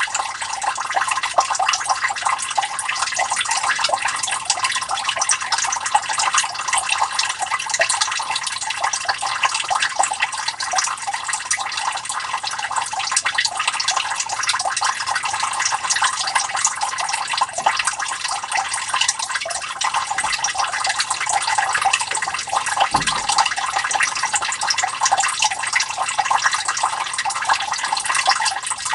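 Water trickling and splashing steadily into a sump pit from the inlet, as the pit fills toward the point where the sump pump switches on.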